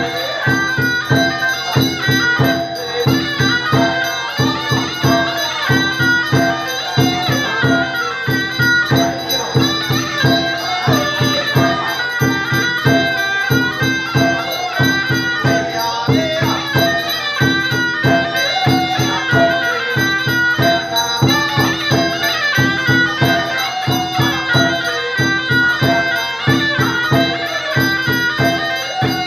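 Traditional Chinese temple ritual music: a bamboo transverse flute playing a reedy melody over sustained tones, with a steady fast percussion beat.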